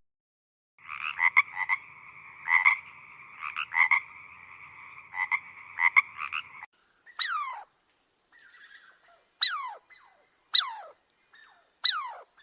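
Frogs calling: a steady two-toned croaking chorus with louder notes standing out for about six seconds, then four sharp calls that each fall quickly in pitch.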